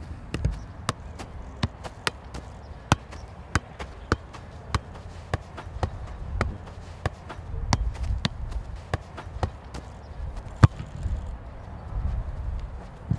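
A football being juggled on the foot: a steady run of sharp ball touches, about one and a half a second, ending with a louder one near the end, over a low rumble.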